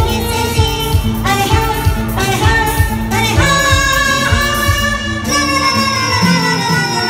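Woman singing an Indian film-style song into a microphone with a live band of saxophone, electric guitar and keyboard, ending on a long held note near the end.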